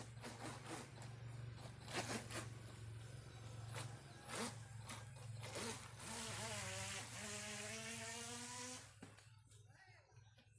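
FT009 radio-controlled speedboat's electric motor whining in short bursts of throttle, then rising in pitch into a steady full-throttle run with a hiss for about three seconds before cutting off.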